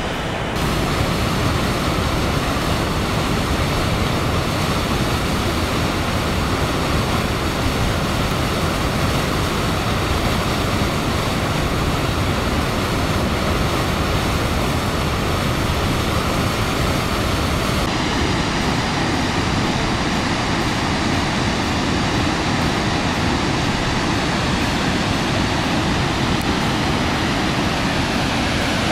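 Niagara Falls: the loud, steady rush of the falling water, an even noise with no breaks.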